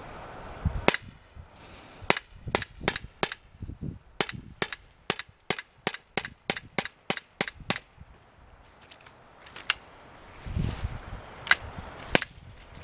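BB gun firing a string of about twenty sharp shots, most in a quick run of three or four a second, with a few spaced shots before and after. No primer goes off.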